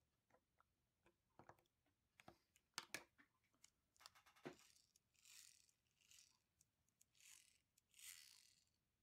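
Faint handling noise of a LEGO 9V motor's plastic housing and a small precision screwdriver: scattered light clicks and taps in the first half, then a few soft scraping rubs as the housing is turned in the hands and a brick is fitted on.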